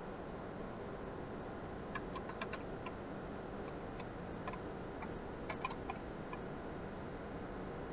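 Light, irregular clicks and taps of a paintbrush being worked, over a steady hiss. The taps come in a scattered run from about two seconds in and stop a little before the end.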